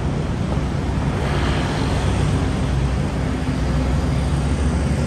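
City road traffic: a steady low rumble of engines, with a hiss of tyres swelling up about a second and a half in as a vehicle passes.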